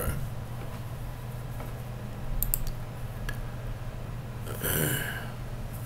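Low steady hum from a computer microphone, with a few quick clicks about two and a half seconds in and a short breath or sniff near the end.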